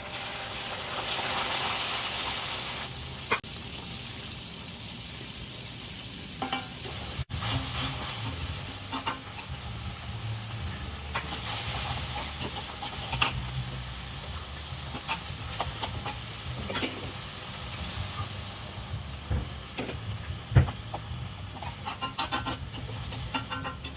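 Food sizzling in a frying pan as it is stirred, with the spatula clicking and scraping against the pan. There is a brief break about seven seconds in.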